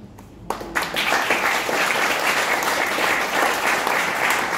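Audience applauding: a few claps about half a second in, swelling within a second into steady applause from a roomful of people.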